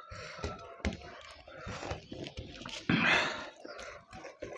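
Close-up eating sounds from mutton curry being eaten: wet clicks and lip smacks of chewing, with a loud breathy sound about three seconds in.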